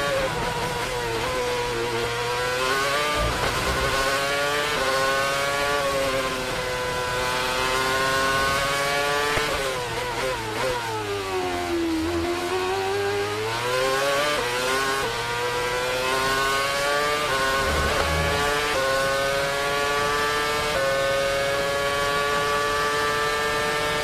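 Renault 2.4-litre V8 engine of a 2013 Red Bull Formula One car, heard onboard at high revs. About halfway through, the car brakes and the engine shifts down through the gears to its lowest pitch in a slow 2nd-gear corner. It then revs up again through a series of quick upshifts back to top speed.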